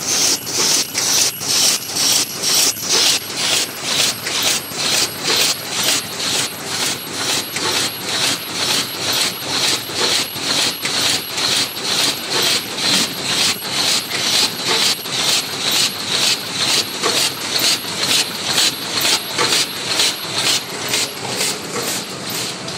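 MYC-120 double-turnplate paper cup machine running at production speed: a steady mechanical clatter beating about twice a second.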